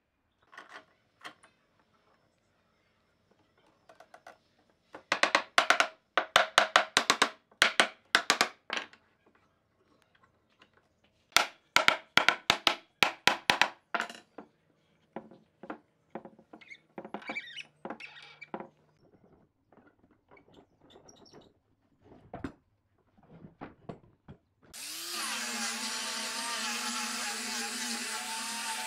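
Quick runs of sharp clicks and knocks while a glued board panel is clamped up. Near the end an angle grinder with a sanding disc whines up to speed and runs steadily, sanding the wood.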